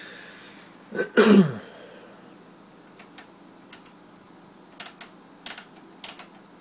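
Tektronix 465B oscilloscope's front-panel rotary switch knobs clicking through their detents as they are turned, about ten sharp clicks from about three seconds in, several in quick pairs. A brief loud noise with a falling pitch comes about a second in.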